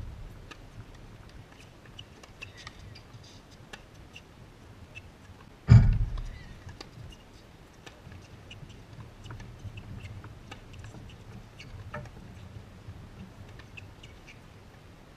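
Tennis balls struck by racquets during a singles rally: one loud, close hit with a low thump about six seconds in and a fainter one about twelve seconds in, over many faint short pops of distant play.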